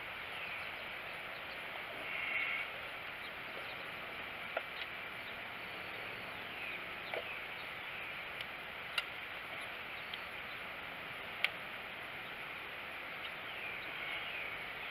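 Small fatwood-shaving tinder fire with dry twigs being piled onto it: a few sharp, isolated snaps over a steady faint hiss, and a short scraping rustle about two seconds in.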